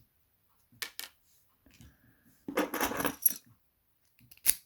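Small metal parts of an Evva DPS lock clicking and clattering as it is taken apart by hand: two light clicks, a brief rattling clatter about two and a half seconds in, and one sharp click near the end.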